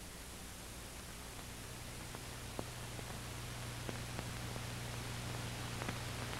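Steady hiss with a low hum and a few faint scattered pops: the bare noise of an old, worn film soundtrack.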